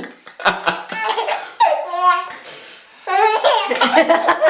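Baby laughing hard in three bouts, set off by his mother's sneezing.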